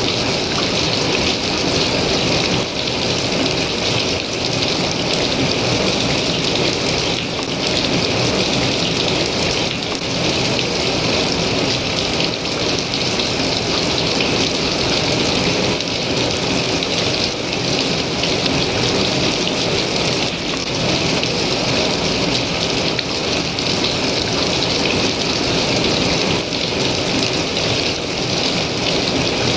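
Hailstones falling steadily: a dense, continuous hiss made of countless small impacts, even in level throughout.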